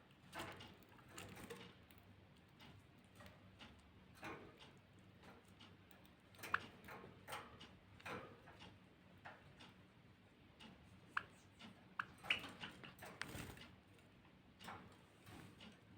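Finches giving faint, short chirps now and then, with soft ticking and tapping between them; a few sharper chirps stand out in the second half.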